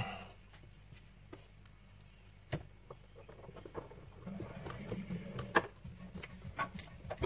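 Scattered clicks and light knocks of the plastic frame and parts of a Philips Saeco Minuto espresso machine being handled and fitted together, with a screwdriver picked up. The two sharpest clicks come about two and a half and five and a half seconds in.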